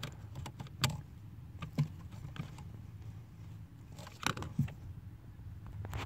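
Plastic clicks and small knocks from a 2017 Ford Fusion brake light switch and its connector being handled and worked into its mounting bracket. The clicks come singly and irregularly, the sharpest about a second in and again just past four seconds.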